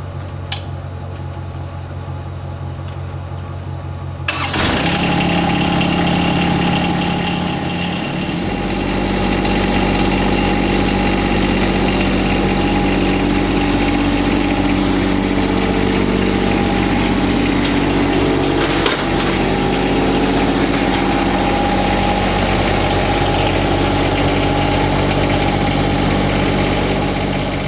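John Deere X758 lawn tractor's three-cylinder Yanmar diesel idling, then suddenly louder and higher in pitch about four seconds in as it is throttled up. It then runs steadily while the tractor drives up a ramp onto a trailer.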